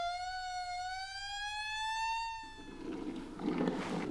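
Siren sound effect for a fire truck: one slow wail rising gradually in pitch, fading out about two and a half seconds in. A rushing noise follows to the end.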